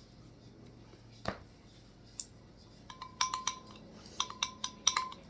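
A utensil clinking against a dish: a single knock, then two runs of quick clinks with a brief ringing tone, like a spoon knocking around a bowl while slime is being mixed.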